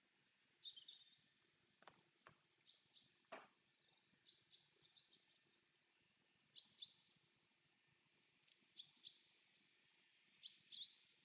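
Forest birdsong: several small birds chirping and twittering in short high notes, growing busier near the end with a quick run of falling whistled notes.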